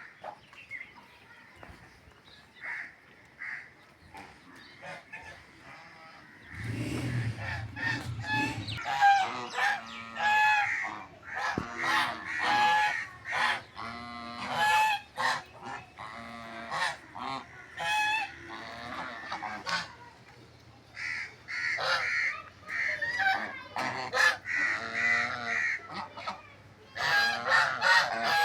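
A flock of domestic geese honking, many short calls overlapping, sparse and faint at first, then loud and nearly continuous from about a quarter of the way in.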